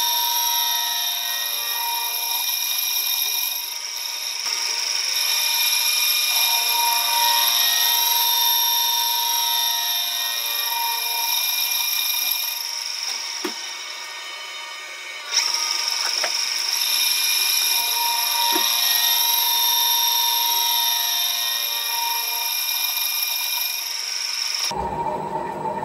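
Metal lathe turning an alloy wheel centre: the cut gives a steady, high-pitched whine made of several tones. The whine drops away for a couple of seconds past the middle and comes back suddenly. About a second before the end it gives way to a lower, rougher machine rumble.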